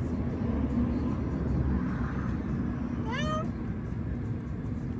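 A feral cat meows once about three seconds in: a short call rising in pitch.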